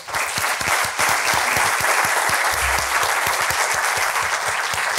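Audience applauding steadily after a talk.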